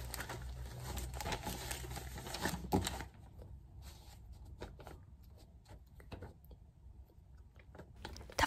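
Paper rustling as a school exercise notebook is handled and its pages turned, with many small clicks for about three seconds. After that only a few faint scattered ticks are heard.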